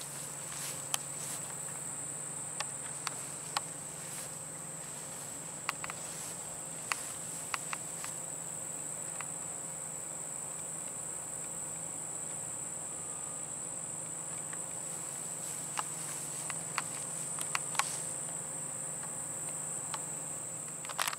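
Insects singing outdoors in summer vegetation: one steady, high-pitched drone, with scattered short clicks over it.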